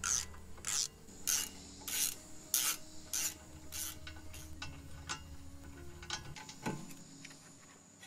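Socket ratchet wrench rasping on each back-swing while it unscrews a front brake caliper bolt: about seven short zipping strokes in the first four seconds, then a few fainter clicks.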